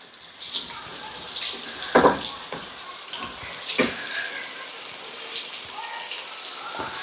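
Floured thin chicken breast fillets sizzling in hot lard in a frying pan, a steady crackling hiss, with a couple of short knocks about two and four seconds in.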